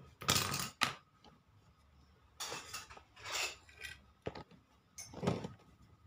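Handling noise at a refrigerator compressor's terminals: a few short clinks and rustles as wire connectors are pushed on, in separate bursts with quiet between.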